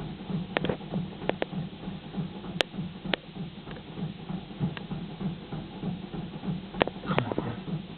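Seat Leon Mk1 1.6 petrol engine being turned over by the starter: an even, rhythmic pulsing of about three to four beats a second that holds steady without picking up, with a few sharp clicks. This fits the car's fault of cranking without firing.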